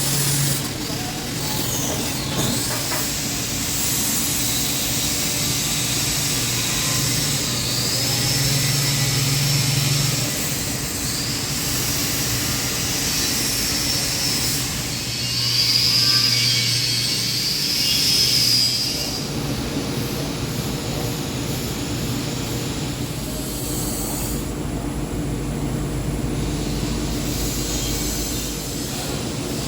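AC TIG welding arc on aluminum at about 120 amps, a steady buzzing hum over a hiss that grows stronger in several stretches.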